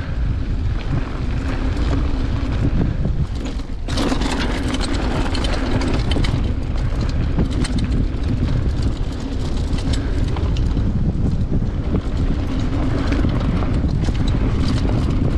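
Wind buffeting the microphone of a handlebar-mounted camera as a mountain bike rolls fast down a dirt trail, with tyre noise on the dirt and scattered clicks and rattles from the bike. The rushing gets louder about four seconds in.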